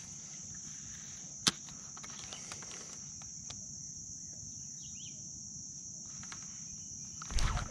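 Insects singing in a steady, unbroken high-pitched chorus, with one sharp click about one and a half seconds in and a low thump near the end.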